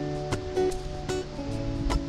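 Background music: plucked acoustic guitar-like strings playing held notes over a light, regular beat.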